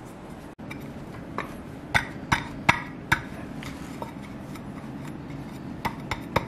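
IKEA Hönefoss hexagonal glass mirror tiles clicking and tapping as they are handled and pressed together: a string of sharp, light knocks, most of them between one and four seconds in, a few more near the end.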